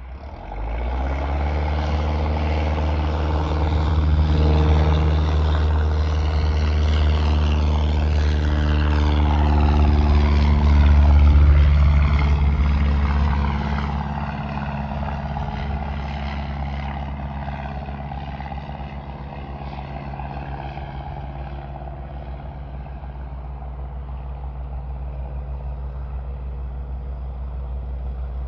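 A vehicle engine running close by. It comes in suddenly about half a second in, runs louder for the first dozen seconds, then settles to a lower, steady idle.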